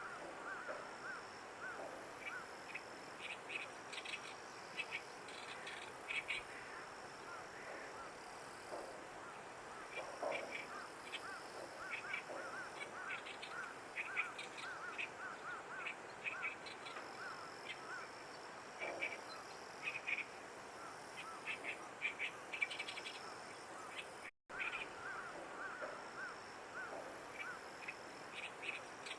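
Animal calls: a steady run of short repeated chirps with clusters of sharper, clicky calls over them and a brief dropout about 24 seconds in.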